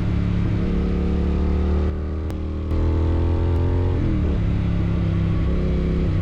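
Triumph Thruxton RS 1200 parallel-twin engine running through a Weslake exhaust with the dB killer removed. Its pitch climbs slowly, then drops sharply about four seconds in.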